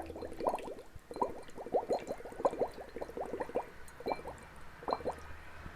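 Air blown through a drinking straw into a glass of water, the straw's end held low in the water: a run of irregular bubbling gurgles, with a short pause in the middle.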